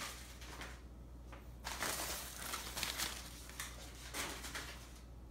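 Crumpled newspaper packing rustling and crinkling as it is gathered and moved. It comes in several bursts, with a short pause about a second in.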